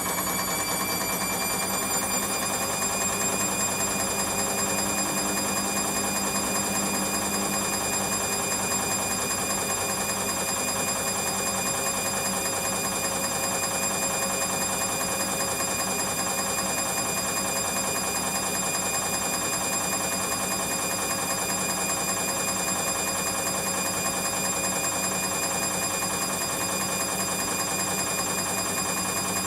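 Washing machine spinning at high speed: a steady motor whine whose pitch creeps up over the first couple of seconds as the drum reaches full spin speed, then holds.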